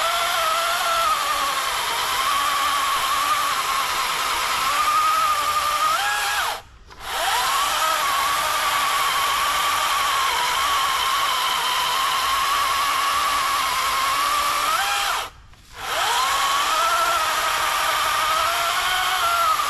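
Wild Badger 40V brushless cordless electric chainsaw cutting through a log: a steady high motor whine that sags in pitch as the chain bites into the wood and recovers as the load eases. It stops abruptly twice, about a third of the way in and again about three quarters through, then spins back up each time with a rising whine.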